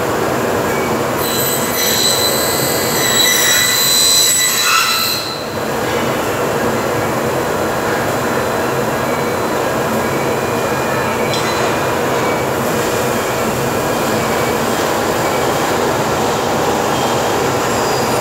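Bomar ALU 400 aluminium-cutting saw sawing through a rail profile. The spinning blade runs with a steady loud whine, and a high metallic screech comes for a few seconds early on as the blade cuts through the metal. Near the end the whine falls in pitch as the blade spins down.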